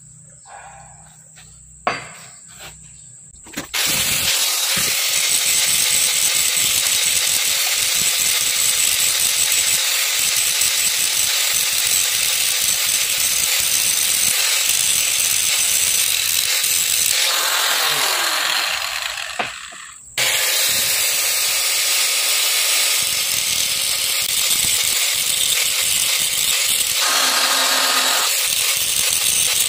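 DeWalt angle grinder running with its abrasive disc against a steel pinion gear, grinding the metal. It starts about four seconds in, cuts out briefly around twenty seconds in, then runs again.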